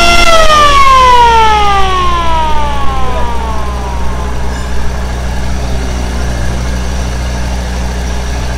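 A boat's motor-driven siren winding down, its pitch falling steadily over about four seconds until it fades out, over the steady low drone of the launch's engine.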